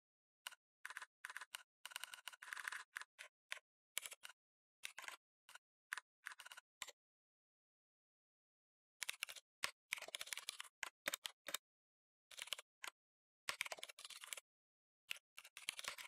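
Typing on a computer keyboard: runs of quick key clicks, with a pause of about two seconds near the middle.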